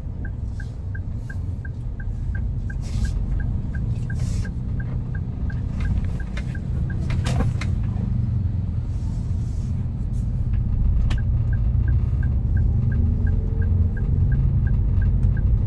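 Motor vehicle driving, a steady low road and engine rumble that grows slightly louder, with a regular high ticking beep about three times a second, like a turn-signal indicator.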